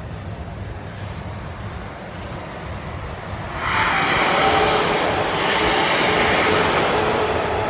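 A so-called 'sky trumpet' recording: a low outdoor rumble, then about three and a half seconds in a loud, drawn-out droning blare with steady tones comes in and holds.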